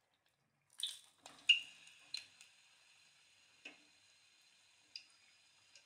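A metal slotted spatula clicks against the kadai several times, starting about a second in with the loudest click soon after, over a faint steady sizzle of a luchi deep-frying in hot oil.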